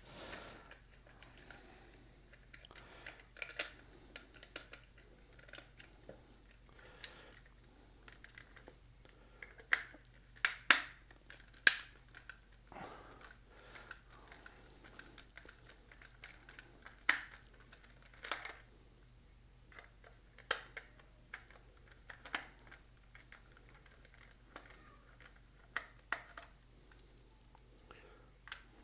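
Small Phillips screwdriver turning screws out of a plastic toy case, with the plastic being handled: irregular light clicks and ticks. A few sharper clicks come about a third of the way in and again a little past the middle.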